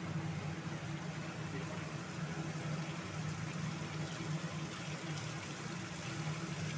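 A steady low mechanical hum under a faint sizzle of pointed gourd and potatoes cooking in spice paste in an aluminium kadai, stirred with a spatula.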